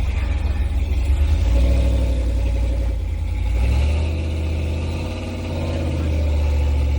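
Off-road vehicle engine running on a trail climb, with a heavy low rumble and its pitch rising and falling as the throttle changes.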